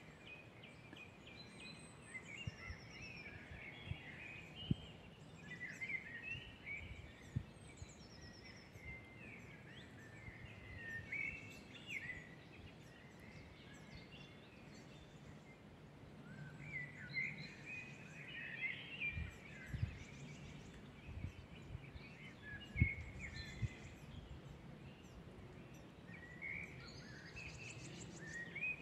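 Several songbirds singing and calling in a forest: many overlapping short chirps, trills and whistles, some very high-pitched. A few brief low thumps stand out, the loudest about three quarters of the way through.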